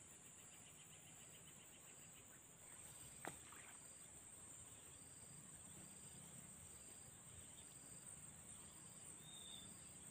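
Faint, steady high-pitched drone of insects in the surrounding vegetation, with a lighter repeating pulse beneath it. A single sharp click about three seconds in.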